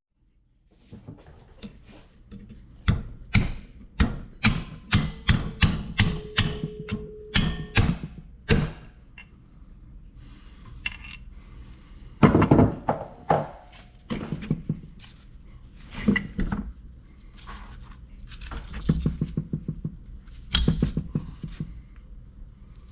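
Metal-on-metal strikes and clanks from work on a Ford 8.8 differential's parts: a run of about a dozen sharp strikes, about two a second, with a brief ring under them, then scattered clanks.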